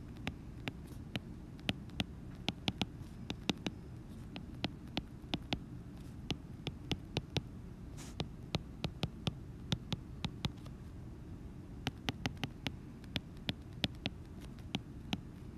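Stylus tapping and clicking on a tablet's glass screen during handwriting: irregular sharp ticks, a few a second, with a short pause about eleven seconds in. A steady low hum runs underneath.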